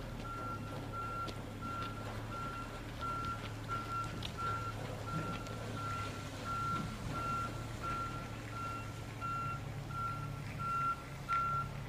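Truck reversing: its backup alarm beeps steadily at one pitch, about one and a half beeps a second, over the low hum of the engine.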